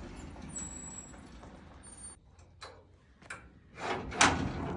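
Clicks of a steel latch, then a louder metallic clank about four seconds in as the rear gate of a livestock trailer is unlatched.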